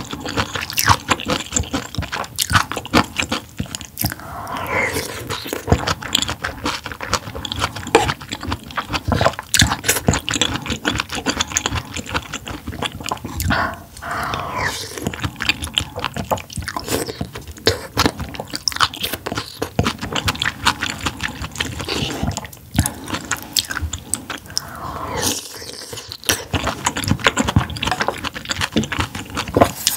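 Close-miked eating sounds: a person chewing and biting food, with dense wet mouth clicks and smacks.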